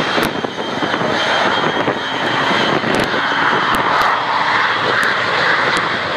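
Jet-powered semi truck's jet engines running at full power, a loud steady roar as it speeds down the runway, with a few short sharp clicks over it.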